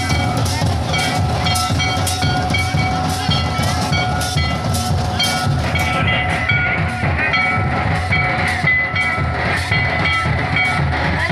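Live Santali folk dance music: barrel drums beaten in a steady, driving rhythm under a high piping melody of held notes. The recording is loud and crowded.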